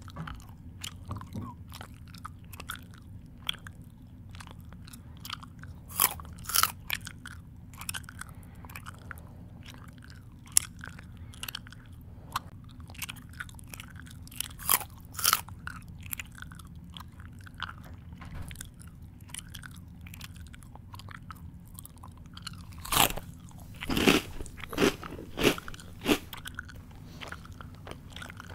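A person chewing crunchy food with irregular crisp crunches. Louder bites come in clusters about six seconds in, around fifteen seconds, and again near the end, with softer crackling chews in between over a steady low hum.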